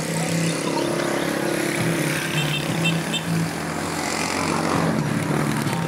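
Motor vehicle engine running steadily.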